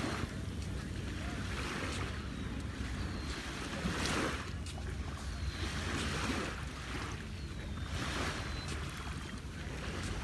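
Small sea waves lapping and washing up the sand about every two seconds, with wind rumbling on the microphone.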